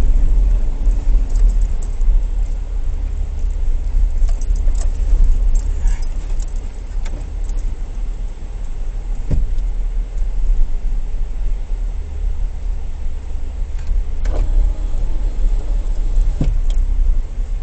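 A Jeep driving a rough dirt road, heard from inside the cabin: a steady low rumble of engine and tyres, with rattling and clicking of loose items and a few knocks over bumps.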